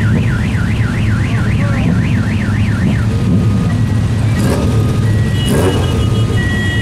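A crowd of motorcycles idling together in a steady low rumble. For the first three seconds an electronic siren warbles over it, rising and falling about three to four times a second, and a few short steady high beeps follow in the second half.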